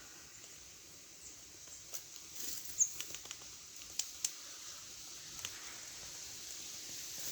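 A tit pecking and tapping at the camera, giving sharp, irregular taps close to the microphone, about seven of them between two and six seconds in.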